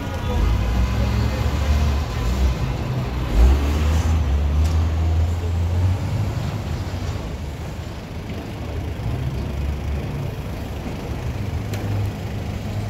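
Heavy traffic at a city intersection: a box truck's engine rumbling deep as it drives past close by, loudest about three seconds in and easing off after about six seconds, with car traffic around it.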